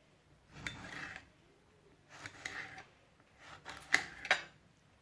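Knife slicing a lemon into thin slices on a cutting board: three short bouts of cutting, with sharp taps of the blade.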